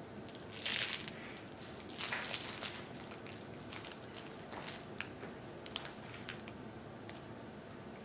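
A baby handling soft toys and fabric: short crinkly rustles, the loudest just under a second in and again around two seconds in, with scattered small clicks and taps.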